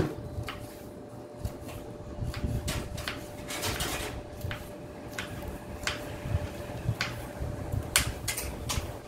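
Kitchen knife slicing a cucumber on a chopping board: irregular sharp taps of the blade striking the board, a few a second.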